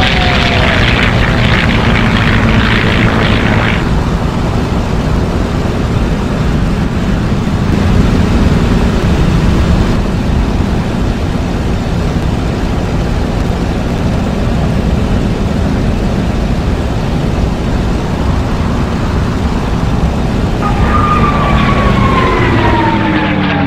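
Propeller fighter-plane engine sound effect. A plane passes at the start with its drone falling in pitch, then a steady low engine rumble runs through the middle, and another pass with falling pitch begins near the end.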